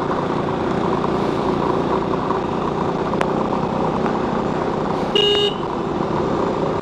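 A motorcycle being ridden: steady engine and road noise. About five seconds in, a vehicle horn gives one short beep of about half a second.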